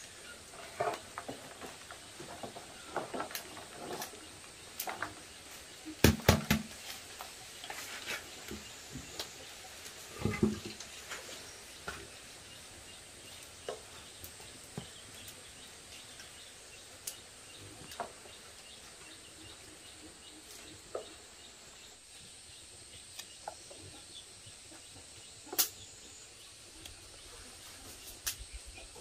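Soft, irregular clicks and taps of termite mushrooms being tipped out of a woven basket and trimmed with a knife, with a few louder knocks about six, ten and twenty-six seconds in. A faint steady high hiss runs underneath.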